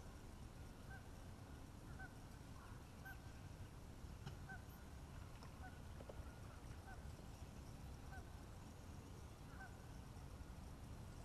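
Faint honking of geese, short calls about once a second, over a low steady rumble.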